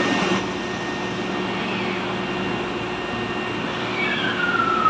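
Sanyo Electric Railway 5000 series electric train standing at an underground platform, its onboard equipment humming steadily. A whine that falls in pitch comes in about four seconds in.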